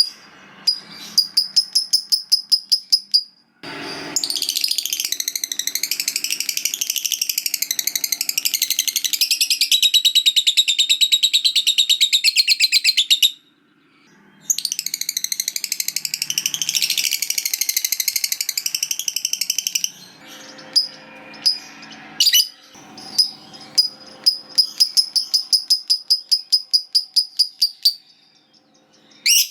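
Lovebird (Agapornis) giving its 'ngekek panjang': long, very rapid chattering trills. Two long unbroken runs of about nine and five seconds come between shorter runs of quick, evenly spaced chirps.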